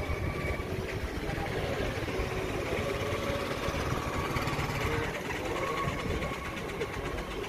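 Town street traffic: vehicle engines running and idling in a steady mix, with faint voices.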